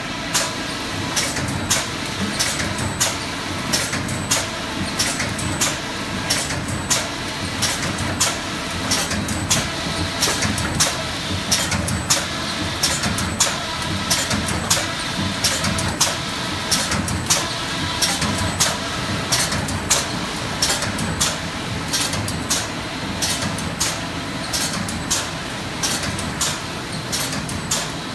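Side seal shrink wrapping machine running: a steady drone of conveyors and shrink tunnel, with the sealing mechanism clacking sharply at a regular pace of a little more than once a second as it seals each pack.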